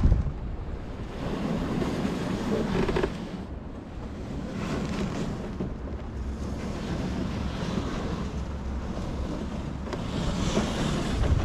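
Wind buffeting the microphone in uneven gusts, a low rumbling rush that swells and fades.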